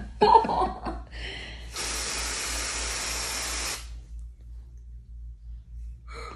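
Aerosol can of ethyl chloride vapocoolant spray hissing in one steady burst of about two seconds, sprayed on the skin of the toe to chill and numb it before a local anaesthetic injection.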